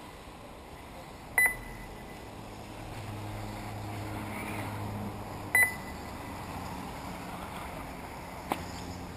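Two short, high electronic beeps about four seconds apart from a race lap-timing system, over a steady low background of the track; a single sharp click near the end.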